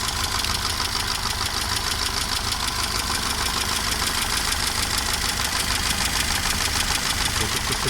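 Mercedes-Benz W201 190E petrol engine idling steadily, with a fast, light ticking running through it. The owner hears a small unexplained knock in the engine and cannot tell whether it comes from the camshaft, the valves or the timing chain.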